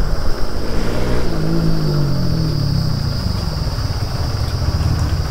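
Motorcycle engine running on the move. About a second in, its pitch falls steadily as it slows, and it then runs on at a steady low pitch.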